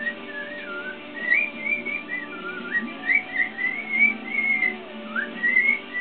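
Cockatiel whistling its song: phrases of short, wavering high notes that rise and fall, with music playing in the background.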